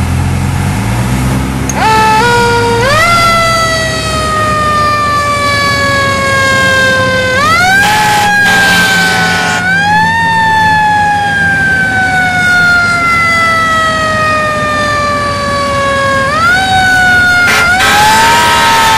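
Fire engine siren heard from inside the cab. Three times it winds up quickly in pitch and then slowly falls away, over the truck's engine running low underneath. A brief rush of noise comes in about eight seconds in.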